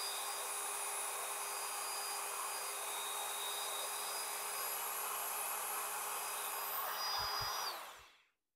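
Porter-Cable corded drill running steadily, turning a priming shaft that drives the oil pump of a Ford 302 V8 to push break-in oil through the engine and build oil pressure. The drill winds down and stops near the end.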